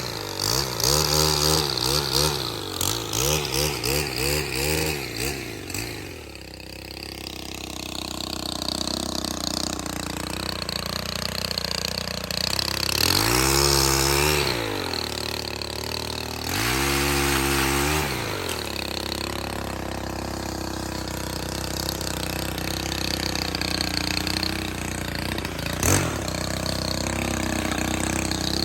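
Small engine of a Stihl HT 131 pole saw (a 4-MIX engine), revved up and down in quick repeated bursts, then settling to a steady idle. Two more separate full revs come about halfway through, and there is a single sharp knock near the end.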